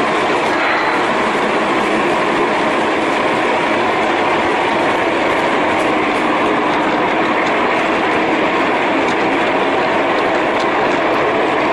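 Model train running along its track, heard close up from a camera riding on the train: a steady rolling, rattling noise with faint irregular clicks.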